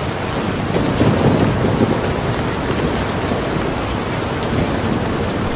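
Steady rain falling, with a low rumble of thunder swelling about a second in and fading over the next two seconds.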